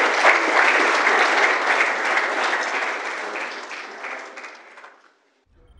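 Audience applauding, many hands clapping, dying away about five seconds in.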